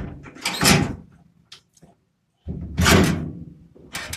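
Truck bedside toolbox latch being worked by hand: two or three noisy bursts of rattling and clunking, like a door, as the handle is turned and the panel is moved.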